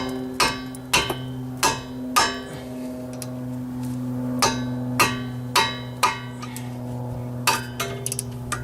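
Hammer striking a ratchet handle to break loose a tight 17 mm brake caliper bracket bolt: about nine sharp, ringing metal-on-metal blows in two runs, with a pause of about two seconds between them. A steady low hum runs underneath.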